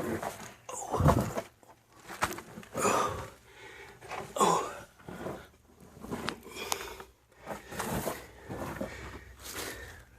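A person's heavy, irregular breathing close to the microphone, in huffs about a second apart, with a few scuffs and clicks among them.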